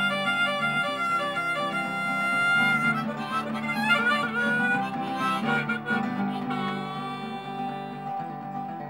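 Harmonica playing a melody of held, bending notes over acoustic guitar chords: an instrumental break between sung verses of a folk song.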